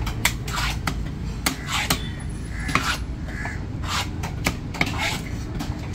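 Large knife chopping and scraping through fish on a wooden log chopping block: an irregular series of sharp knocks as the blade strikes the wood.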